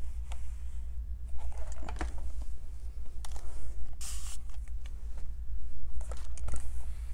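Quilting fabric and tools being handled on a work table: scattered light clicks and scrapes, with a short rustle about four seconds in, over a steady low hum.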